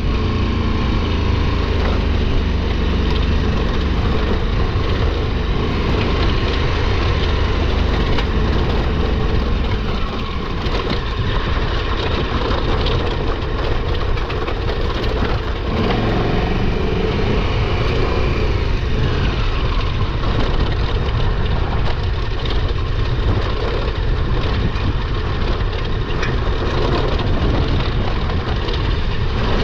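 KTM 1290 Super Adventure R's V-twin engine running steadily at low revs.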